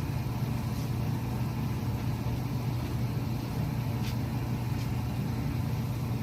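Pan of water heating on the stove toward the boil: a steady low rumble, with a few faint light ticks.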